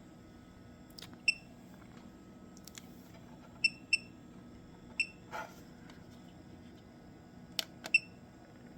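About six short, sharp electronic beeps, each a clicky pip, spread irregularly, as buttons are pressed on bench electronics; a brief rustle about five seconds in, over a faint steady hum.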